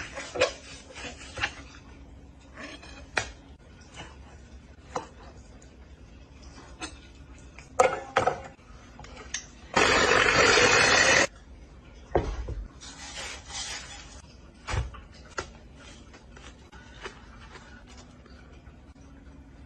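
Knife clicks, taps and scrapes on a plastic cutting board as raw salmon is sliced. About ten seconds in, an ice shaver shaves ice for about a second and a half, the loudest sound.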